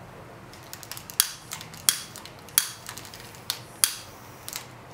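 Trigger of a long-nosed butane utility lighter being clicked again and again, a series of sharp clicks about one or two a second.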